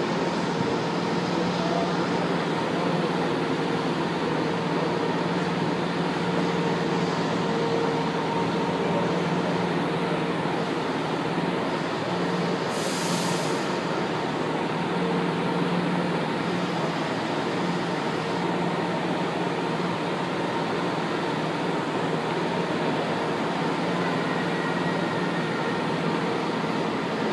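São Paulo Metro Line 1 train standing at the platform, its onboard equipment giving a steady hum with a few held tones. A short hiss of released air comes about halfway through.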